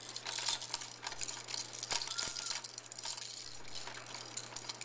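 Plastic baby activity toy being batted and handled by small hands: a string of irregular plastic clicks and rattles.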